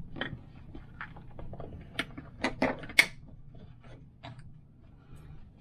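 Small clicks and taps of a wooden pinhole camera being handled on a wooden counter, with a cluster of sharp clicks about two to three seconds in; the loudest comes about three seconds in. A low, steady hum runs underneath.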